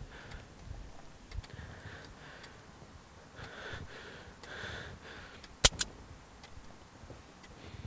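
Revolver hammer snapping down on an empty chamber in Russian roulette: two sharp clicks in quick succession a little past halfway, with tense breathing.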